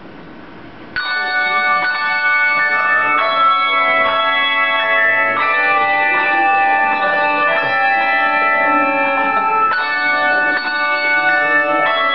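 Handbell choir ringing a worship song: chords of sustained, overlapping bell tones start suddenly about a second in and change every few seconds.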